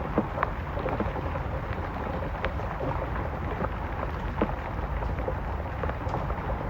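Steady rain falling, with individual drops hitting a surface in scattered close taps over the even hiss, and a low rumble underneath.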